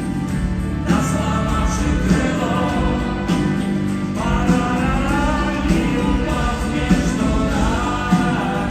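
Rock band playing live: a melody gliding over steady bass and drums, with a drum hit about once a second and no lyrics sung.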